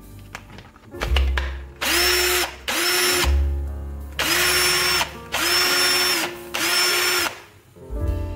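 Cordless drill run in five short trigger pulls, the motor whirring up and stopping each time, with a click about a second in and again near the end as the battery pack is handled on the drill.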